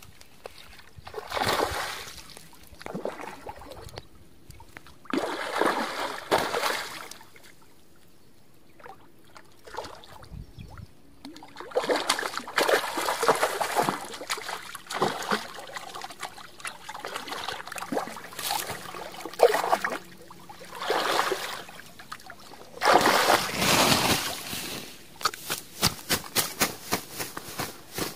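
A hooked fish thrashing at the surface of shallow water as it is played in on a rod, in bursts of splashing and sloshing with quieter pauses between. A quick run of clicks and rustles near the end.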